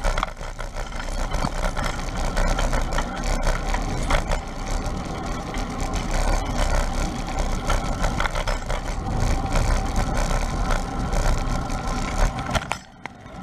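Wind rushing over a GoPro's microphone on a moving bicycle, a steady noisy rumble with a strong low end that drops away sharply near the end.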